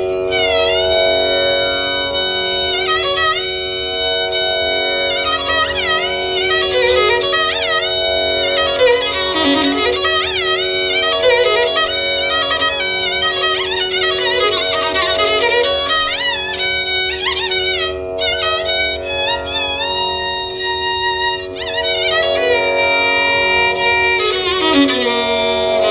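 Carnatic violin improvising a raga Bilahari alapana, playing gliding, heavily ornamented phrases over a steady drone.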